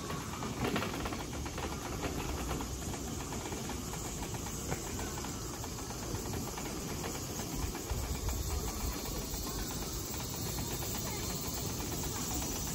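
Electric wheelchair rolling along a paved path, a steady rumble with hiss.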